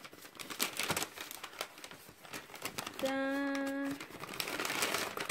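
White paper packet crinkling and rustling as hands open it, in many short crackles. About three seconds in, a steady pitched note holds for about a second.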